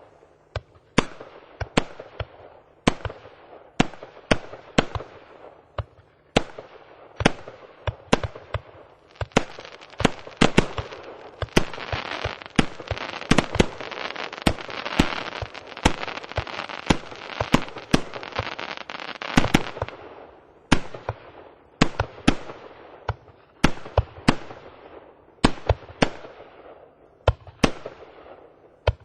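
Firework battery (cake) firing: a steady run of sharp bangs, one or two a second, each trailing off in crackle. In the middle the shots come thicker and merge into continuous crackling, then thin out again to single bangs near the end.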